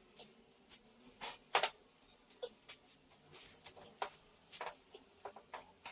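Irregular light clicks and knocks, a dozen or so, with the sharpest pair about one and a half seconds in.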